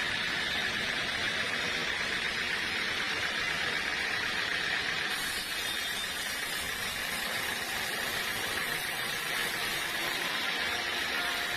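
Sawmill machinery running with a steady, even noise, with no breaks or knocks.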